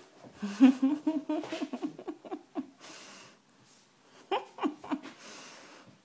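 A woman laughing: a long wavering peal, then a few short bursts of laughter about four seconds in, with breathy exhales between.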